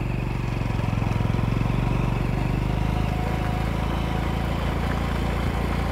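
A motor vehicle's engine running steadily at low road speed, with an even, low hum.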